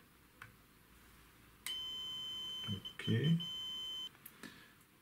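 Bench digital multimeter beeping during a resistance check of the gyro motor windings: one steady high beep of about two and a half seconds, broken briefly midway, as the test probes are held on the connector pins. Faint clicks of the probes touching the pins come before and after it.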